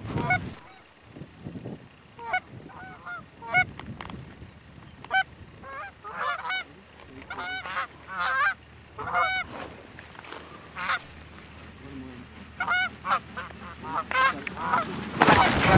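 Canada goose honks and clucks: many short calls that rise and fall in pitch, some overlapping, as a flock comes in to decoys. About a second before the end a loud rushing burst covers the calls.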